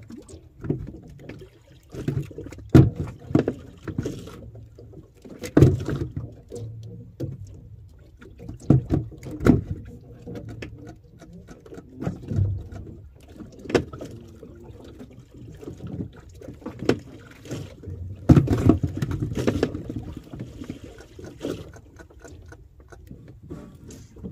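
Fishing handline being hauled in hand over hand aboard a small boat: rustling of line and hands, with irregular knocks and thumps against the hull and a denser cluster of them about eighteen seconds in.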